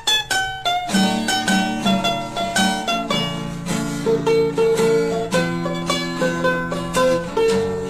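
Background music led by a plucked string instrument, with quick picked notes over held lower notes.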